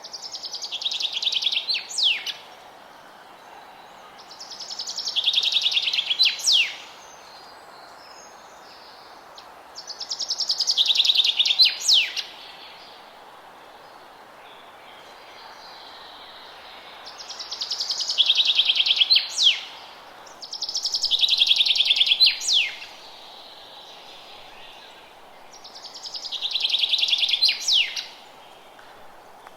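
A songbird repeating the same song six times, about every four seconds: each song is a rapid run of high notes falling in pitch, ending in a couple of sharp down-slurred notes. A faint steady background hiss lies under the songs.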